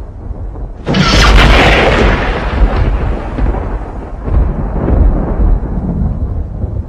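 Thunder: a sudden sharp crack about a second in, then a long rolling rumble that swells and fades over a steady deep rumble.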